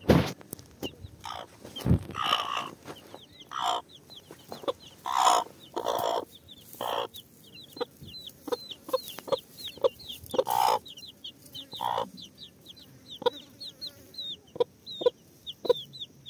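Chickens clucking, with a run of short high chirps several times a second through the second half and scattered sharp knocks.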